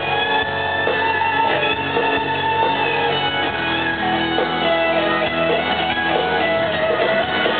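Live country-rock band playing, with an electric guitar lead of held and sliding notes over the band.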